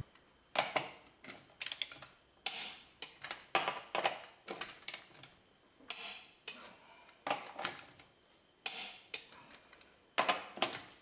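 Torque wrench tightening lug nuts: runs of light ratchet clicks, then a sharper, ringing click every two to three seconds. That click is the wrench breaking over at its set torque of 100 foot-pounds, one nut after another.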